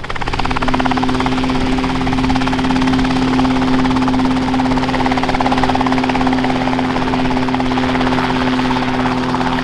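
RotorWay Exec kit helicopter hovering a few feet off the ground: a steady engine and rotor drone with a fast, even beat from the rotor blades.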